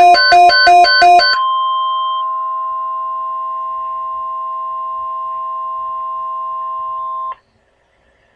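Emergency Alert System alert tones on a weather radio broadcast: about a second of rapidly pulsing beeps, then a steady electronic attention tone of several held pitches lasting about six seconds. The tone cuts off abruptly about seven seconds in.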